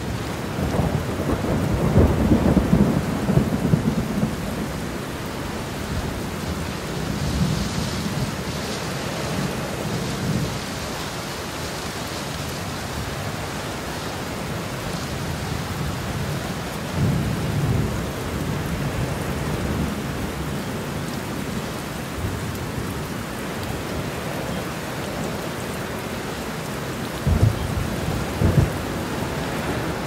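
Steady rain falling, with rolling thunder rumbling underneath, loudest in the first few seconds. Two sharper thunder cracks come near the end.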